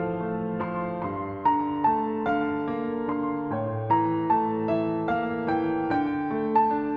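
Background piano music: a melody of single notes struck about two or three times a second over held lower notes.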